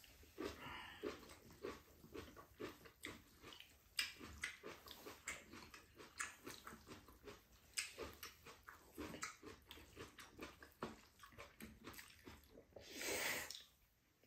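Close-up eating sounds of noodles: chewing with many short clicks throughout, and one long slurp of noodles near the end.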